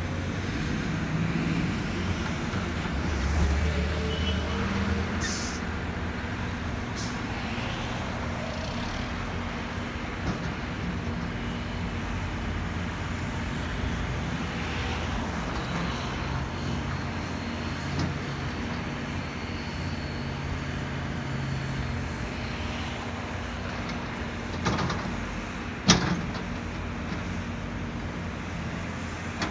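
Volvo EC330BLC excavator's diesel engine running steadily under working load, louder for the first few seconds. A few sharp knocks, the loudest a few seconds before the end.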